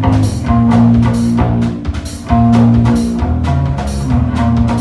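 A live band playing an amplified guitar over a drum kit: held low guitar notes with regular drum and cymbal hits.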